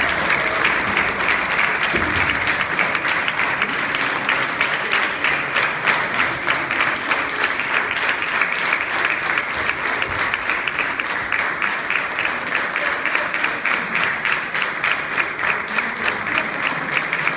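Audience applauding a school wind band: dense, steady clapping that in the second half takes on an even, pulsing beat.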